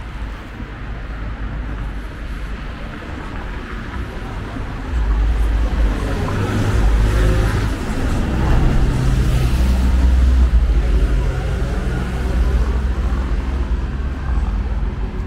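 A city bus passes close by on the street. Its engine rumble and tyre noise build about five seconds in, peak, then ease off, over steady background traffic.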